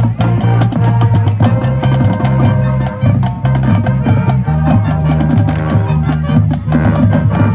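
Marching band playing, with held low notes that move in steps under a busy drum beat.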